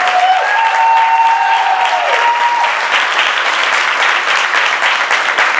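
Audience applauding, with a long held cheer over the clapping during the first couple of seconds.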